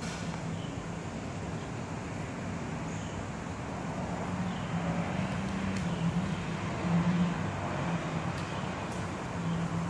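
1982 Honda CB900F Super Sport's air-cooled inline-four engine idling steadily, growing a little louder around the middle.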